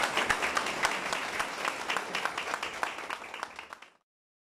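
Audience applauding: many hands clapping, fading a little and then cutting off abruptly about four seconds in.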